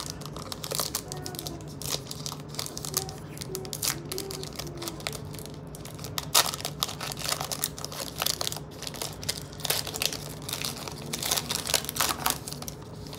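Foil trading-card pack being torn open and its wrapper crinkled by hand: a run of crackles and rustles, busiest around six to eight seconds in and again near the end.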